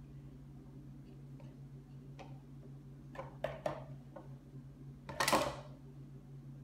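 Thick green smoothie being poured and worked out of a small plastic blender cup into a tall tumbler: a few light taps and knocks, with one louder, short noisy burst about five seconds in, over a steady low hum.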